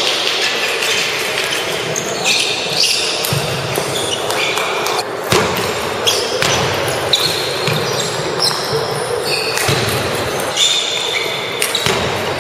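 Table tennis balls clicking off paddles and tables at several tables in a gymnasium, with sneakers squeaking on the wooden floor and a steady murmur of voices echoing in the hall.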